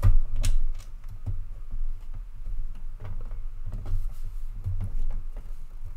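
Lego bricks clicking and rattling as the pieces of a brick-built figure are pressed together by hand, with a few sharp clicks near the start, then lighter scattered clicks and low bumps.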